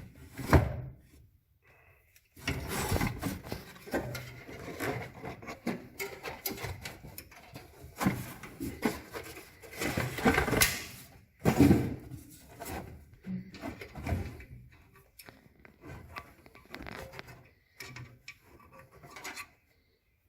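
Hand work on a glove box door spring and its door arm: irregular rubbing, scraping and clunking as the spring is worked into place, with sharp knocks about half a second in and again near 12 seconds.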